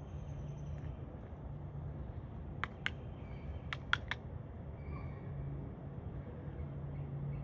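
Five sharp clicks in two quick groups, about three to four seconds in, over a steady low hum.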